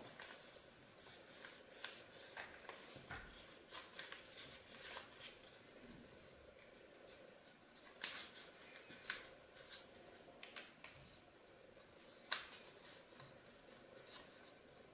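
Origami paper being folded by hand: soft, scattered rustles and crinkles, with a few sharper, crisp creasing snaps. The loudest snap comes about twelve seconds in.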